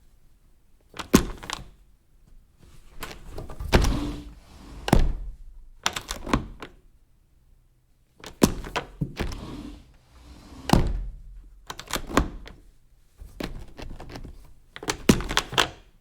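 Door being worked over and over: clusters of latch clicks and wooden clunks, about seven times, a second or two apart.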